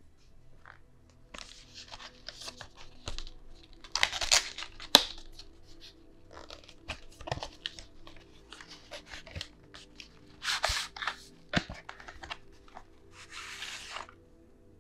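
Cardboard retail box being opened by hand and a clear plastic clamshell tray slid out of it: scattered rustling, scraping and tearing of card and plastic, with louder crackles about four and five seconds in and again near eleven seconds, and a softer sliding rustle near the end.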